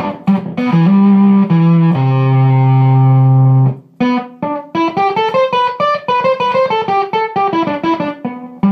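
Electric guitar played through a MK1 Tone Bender-style fuzz pedal with the guitar's volume knob rolled back to about half, cleaning up the fuzz. A few short chords and a held low note that cuts off abruptly just before four seconds in, then a fast run of single notes ending on a held note.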